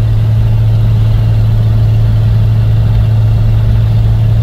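1988 Jeep Cherokee XJ engine and exhaust droning loudly and steadily from inside the cabin while driving at a constant speed. The exhaust manifolds are cracked and the pipe is only taped.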